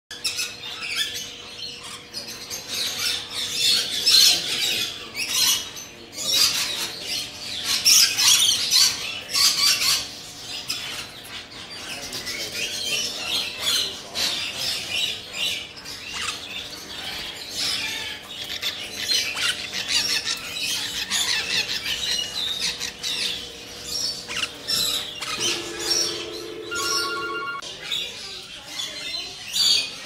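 Many caged birds, parrots among them, calling and chirping at once in overlapping high calls, busiest in the first few seconds. A short steady tone sounds briefly near the end.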